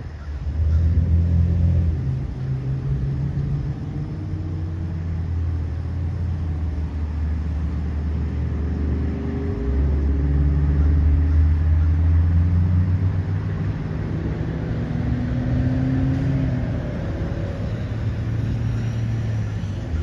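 Low, steady engine rumble of a motor vehicle, its pitch stepping up or down a few times, with a few faint rising and falling tones above it.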